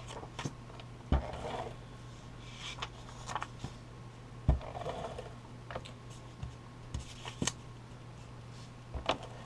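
Cardstock being handled at a craft table: soft paper rustling with scattered taps and knocks on the work surface, the sharpest about a second in and midway, over a steady low hum.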